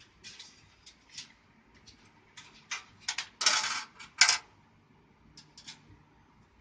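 Small hard parts being handled: a run of light clicks and clatter, with a short scraping rustle about three and a half seconds in and a sharp click just after it.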